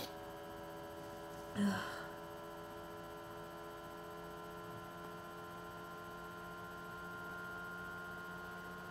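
Steady electrical hum made of several level tones, between sneezes, with one short breathy sound from the person about a second and a half in.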